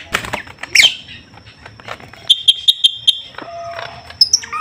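Caged green leafbird (cucak ijo) calling: a sharp downward-sliding note, then a quick run of about six high chirps. Near the end a bird flutters onto the perch.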